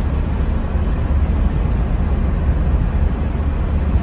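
Steady low rumble of road and engine noise inside a pickup truck's cab while driving at road speed.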